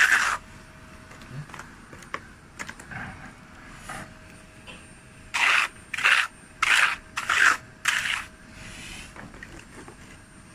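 Steel hand trowel scraping as it spreads and levels wet cement plaster over cracked concrete. One stroke comes at the start, then softer scuffs, then five quick strokes about half a second apart just past the middle.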